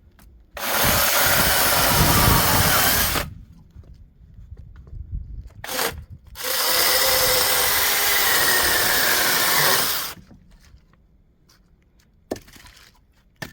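A power saw cutting through firewood in two runs of about three seconds each, with a short burst between them.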